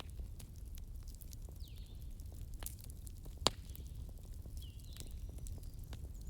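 Wood fire crackling, with scattered small snaps and one sharp, loud pop about halfway through, over a low steady rumble.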